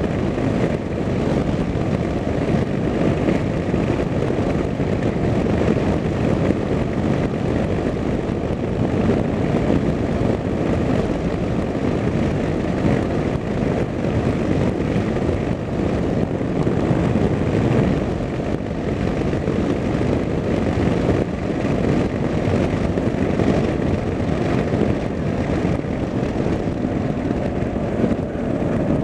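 Steady engine and road noise of a moving vehicle heard from on board, a dense low rumble that holds evenly with no breaks or changes.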